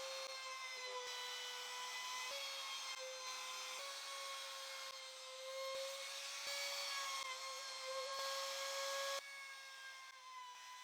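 Router spinning a bevel bit along wooden edges: a steady high whine over a cutting hiss, with small sags in pitch as the bit takes the wood.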